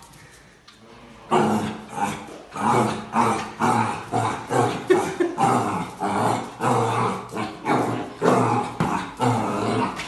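A dog vocalizing in a rapid run of short, repeated sounds, about two a second, starting a little over a second in.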